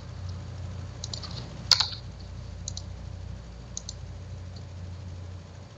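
A few scattered computer keyboard keystrokes, separate clicks with pauses between them, the loudest a little under two seconds in, over a low steady hum.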